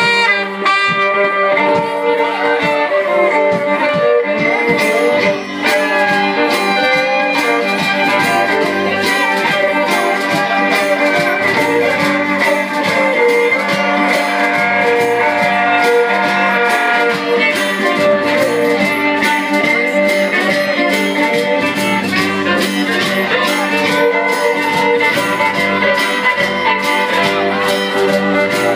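Live band playing an instrumental passage of a song, with bowed strings carrying the melody. A steady beat comes in about four seconds in.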